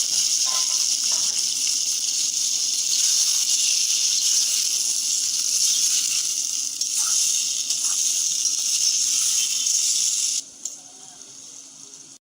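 Loud, steady sizzling of pressure-cooked mutton and its juices hitting hot oil, onions and curry leaves in a kadai. The sizzle cuts off suddenly about ten seconds in.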